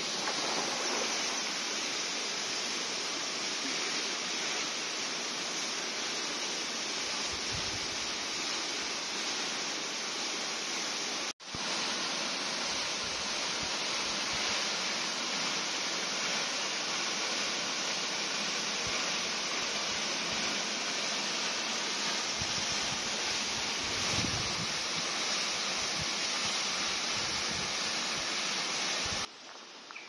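Hardraw Force, a single 30 m waterfall running low in a dry spell, pouring into its plunge pool: a steady rushing hiss of falling water. It breaks off for an instant about eleven seconds in and falls away abruptly just before the end.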